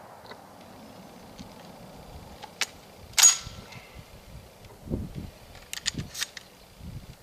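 Metal clicks, one sharp clack with a short metallic ring about three seconds in, then more clicks and dull knocks: a 12-gauge shotgun's action being handled after firing.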